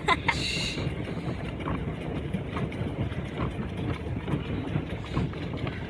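Wind buffeting the phone's microphone out on an open lake, a steady rumbling rush, with a short higher-pitched sound just after the start.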